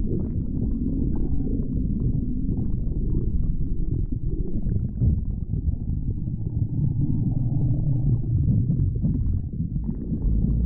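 A stomach growling: a continuous low rumbling and gurgling that churns irregularly without pause.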